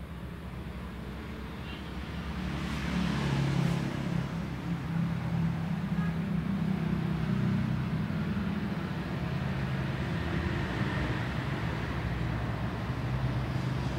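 A motor vehicle's engine running steadily with a low hum, getting louder about three seconds in and then holding.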